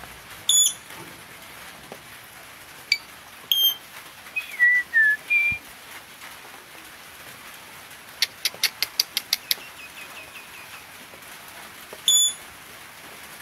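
Blue-rumped parrot calling: sharp, high-pitched single calls spaced a few seconds apart, a short string of whistled notes, and a quick run of about nine chips in the middle.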